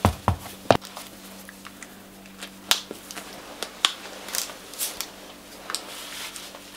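A few soft footsteps on a wooden floor in the first second, then scattered light clicks and rustles of close handling, over a faint steady hum.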